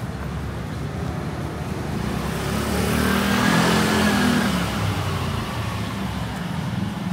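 A motor scooter passing close by and riding away, its engine growing louder to a peak about three to four seconds in, then fading.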